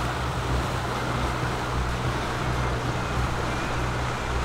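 Steady low hum under an even rushing noise, the sound aboard a sailboat under way.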